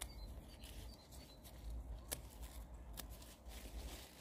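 Scissors snipping through mustard green stems: three sharp snips, the last two about a second apart.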